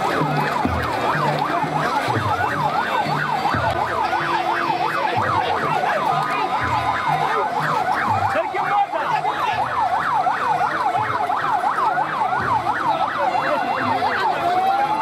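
Vehicle siren on yelp, sweeping quickly up and down in pitch several times a second, over low rhythmic thuds.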